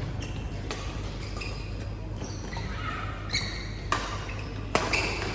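Badminton rally: rackets striking the shuttlecock with sharp smacks, two or three in the last second and a half, and court shoes squeaking briefly on the court mat.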